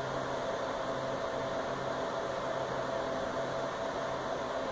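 Steady whirring hum and hiss of a Lenovo ThinkStation E31 desktop's cooling fans as the computer boots.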